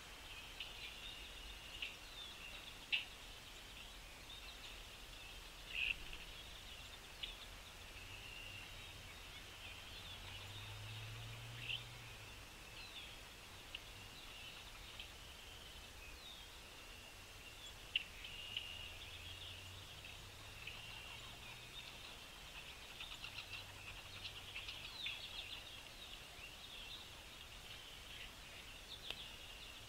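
Small songbirds chirping at a feeder: many short, high chirps and twitters throughout, with a few louder sharp calls.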